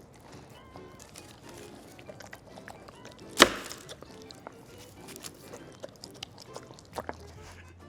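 Dogs eating birthday cake, with scattered small chewing and licking clicks over faint background music. One sharp knock about three and a half seconds in.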